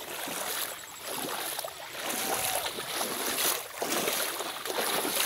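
Shallow muddy water sloshing and splashing as people wade through it and stir it up to drive the fish to the surface.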